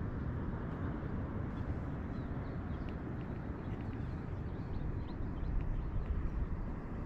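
Wind rushing over the microphone on an exposed mountain summit, a steady low rumble. Faint short high chirps sound through it.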